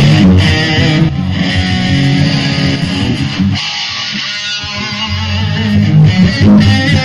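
Rock band's sound check through the stage PA: electric guitar playing over bass. The bass drops out for about a second and a half midway, then comes back in.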